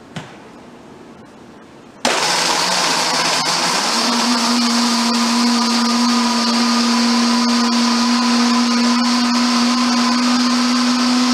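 Waring Xtreme MX-series 3.5-horsepower commercial blender with the Raptor jar, switching on suddenly about two seconds in and running on high through ice and strawberry daiquiri mix. About two seconds after it starts, a steady motor whine sets in. It cuts off near the end as its 10-second timer runs out, the pitch falling as it spins down.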